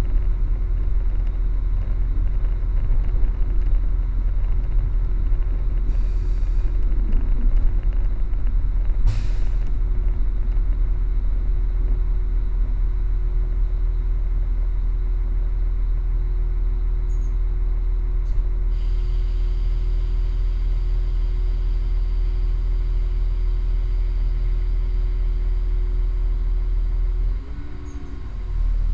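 Steady low rumble of a train running, heard from inside the carriage, with a constant hum and a single sharp click about nine seconds in. The level dips briefly near the end.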